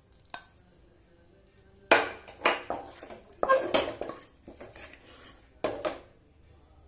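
A wooden spatula scraping and knocking against a non-stick frying pan as it scoops out thick, sticky jam. It comes as a run of short scrapes and taps from about two seconds in until near the end, a few of them with a brief ring.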